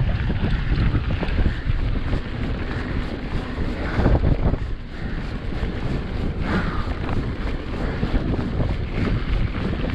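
Wind buffeting the microphone of a mountain bike speeding downhill on a loose gravel track, with the rush and crunch of the tyres and steady rattling of the bike.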